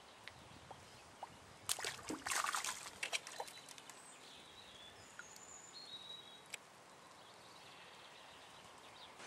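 Rustling and clicking of a plastic bag and tackle being handled for about a second and a half, over a quiet outdoor background with a few brief faint bird chirps.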